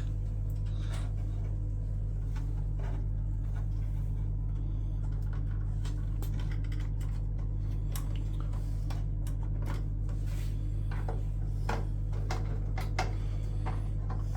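Steady low hum with faint, scattered small clicks and taps over it.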